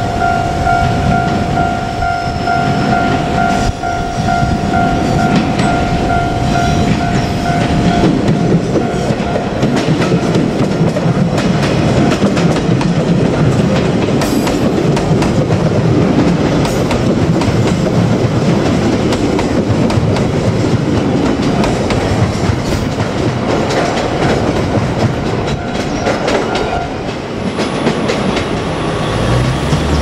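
JR Kyushu 817-series electric train running past at close range, its wheels clattering over the rail joints in a dense rumble. A steady ringing tone sounds over it and stops about eight seconds in.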